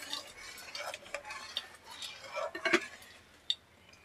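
Metal spoon stirring thin jaggery-and-tamarind syrup in a metal kadhai, scraping and clinking against the pan with soft liquid swishes. One sharper knock comes near the three-quarter mark.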